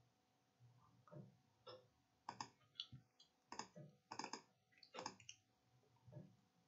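A dozen or so faint computer mouse clicks, irregular and sometimes in quick pairs, as the on-screen calculator buttons are clicked to enter a sum.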